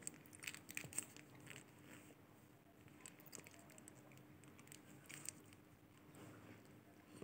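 Near silence with faint, scattered wet clicks and smacks from a toddler eating with his fingers, over a faint steady hum.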